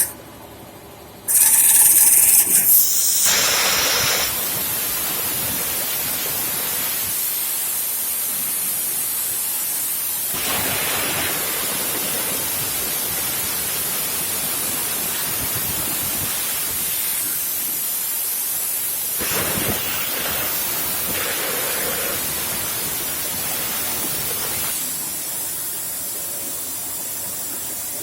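Plasma cutting arc on a CNC plasma table, hissing as it cuts steel plate. It starts loudly about a second in, then settles to a steady hiss.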